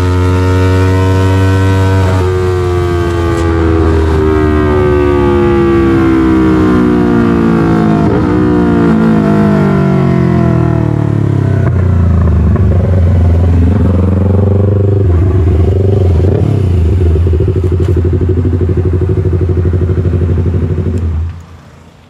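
Yamaha MT-03's parallel-twin engine running through an SC-Project full exhaust: the revs rise briefly, then fall steadily for several seconds and settle into an even idle. The engine sound cuts off near the end.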